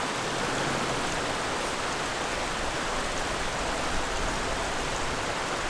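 Steady rush of a shallow creek running down over rock ledges.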